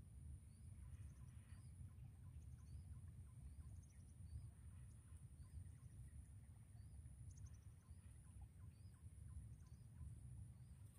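Near silence: faint outdoor ambience of small birds chirping now and then over a steady high-pitched drone and a low wind rumble.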